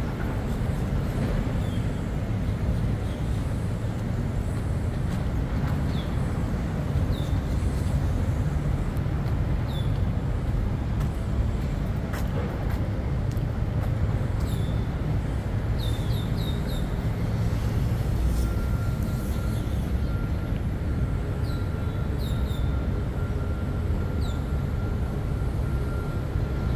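Steady low rumble of a moving vehicle, with short high falling chirps now and then and a faint steady high tone through the second half.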